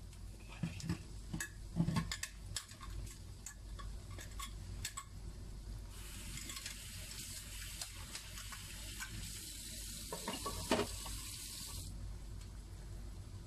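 Wooden spoon stirring chopped tomato and onion in a large nonstick pan: a run of light clicks and scrapes against the pan, then a steady hiss that starts about halfway through and cuts off suddenly near the end.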